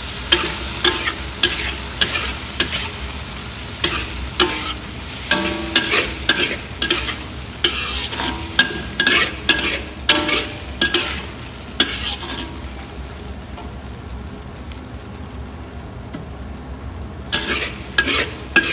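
Steel spatula scraping and tossing food around a wok over a steady sizzle, stir-frying meat with salted mustard greens and chilies in a little water. The strokes come in quick succession, stop for a few seconds about two-thirds of the way through while only the sizzle goes on, and start again near the end.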